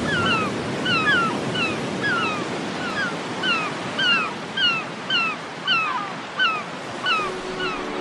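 Seagulls crying over the wash of ocean surf: many short cries, about two a second, over a steady noise of waves. Music comes in near the end.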